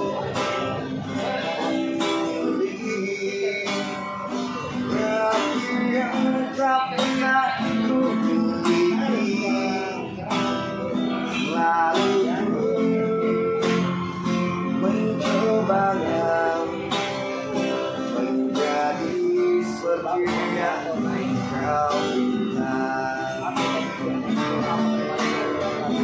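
Acoustic guitar strummed steadily, with picked melody notes between the strokes.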